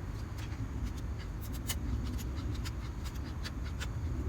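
A knife shaving curls off a stick of firewood to make a feather stick: short, irregular scraping strokes, several a second at times, over a steady low rumble.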